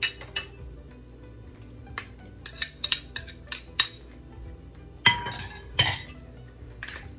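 A spoon clinking against a cooking pot and bowl: a series of sharp clinks, with two louder, ringing clanks about five and six seconds in.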